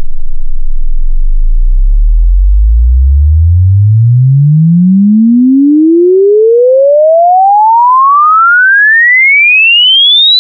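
Frequency sweep test tone: a single pure sine tone rising steadily in pitch from a deep bass hum to a high whistle, used to check that speakers reproduce all frequencies evenly.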